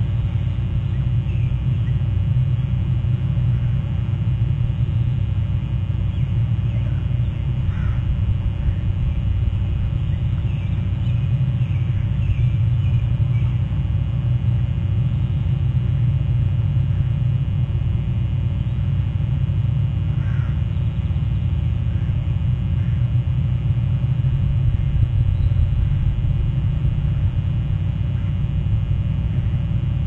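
Steady low rumble with faint, short oystercatcher calls scattered through it, a cluster about ten to thirteen seconds in and another about twenty seconds in.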